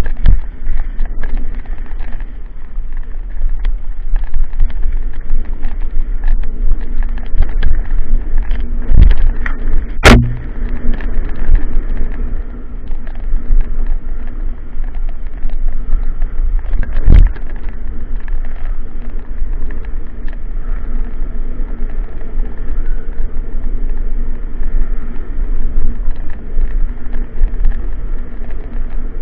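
Wind rushing and buffeting over a moving camera's microphone, a steady low rumble with light rattling, broken by sharp knocks about nine and ten seconds in and again about seventeen seconds in.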